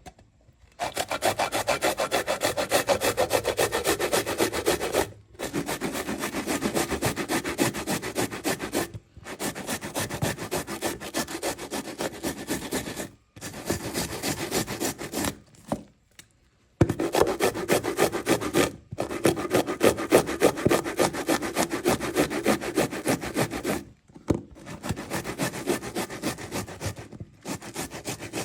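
A tomato being grated on a grater: fast, even rasping strokes in runs of a few seconds, broken by brief pauses, the longest about a second long in the middle.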